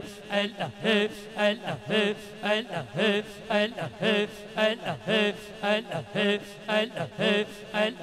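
Rhythmic devotional chanting with music, pulsing about twice a second over a steady low drone.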